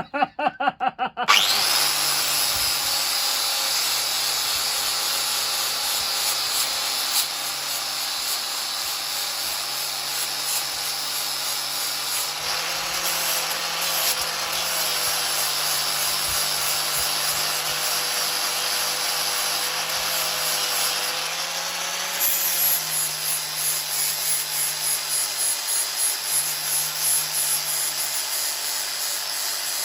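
Electric grinder running steadily and grinding steel: one even motor hum with a bright hiss of metal being ground over it. It starts up about a second in.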